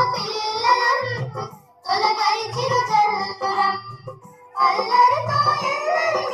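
A Telugu song with a child's singing voice over music, sung in phrases with two brief pauses between them.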